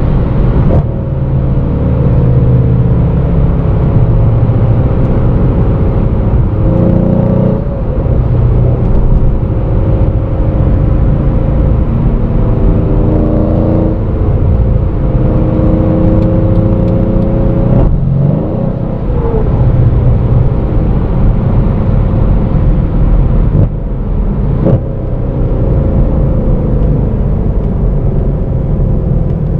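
Tuned Mercedes C63 AMG's 5.5-litre biturbo V8 heard from inside the cabin at high autobahn speed. The engine runs loud and steady under load, its pitch slowly rising in stretches, with a few brief breaks and dips in the sound along the way.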